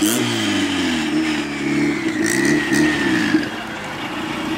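Turbocharged Honda Civic hatchback's engine being revved in repeated quick blips, the pitch climbing and dropping several times with a thin whine riding above it. It settles to a lower, steadier running near the end.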